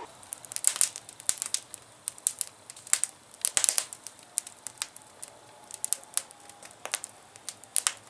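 Wood fire crackling in a steel barrel stove, with irregular sharp pops and snaps.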